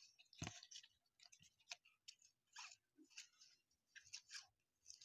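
Faint, irregular soft clicks and rustles of cardboard baseball cards being handled and flipped through one by one.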